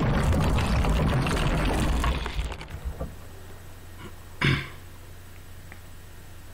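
Logo-sting sound effect: a loud noisy rush that dies away about two and a half seconds in, then one short sharp hit a couple of seconds later, over a faint low hum.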